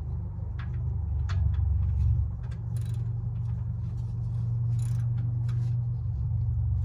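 Hand ratchet wrench with a 16 mm socket tightening a truck's oil drain plug: scattered clicks and a couple of short ratcheting rasps, over a steady low rumble.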